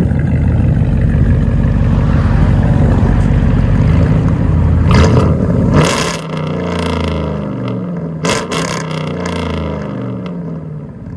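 Ram 1500's 5.7 L Hemi V8 revving through a 2.5-inch true dual exhaust with no X-pipe. It is held high and loud for about five seconds, then blipped sharply a couple of times, the pitch sliding back down as it settles toward idle.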